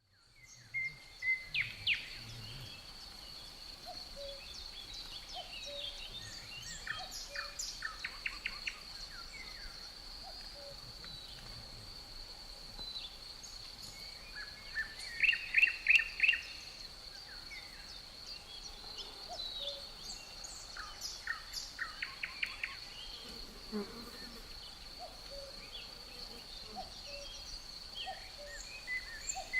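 Forest ambience: crickets trilling in a steady high continuous tone while songbirds call and sing over it in short bursts of quick notes, the loudest burst about halfway through. The sound fades in from silence at the start.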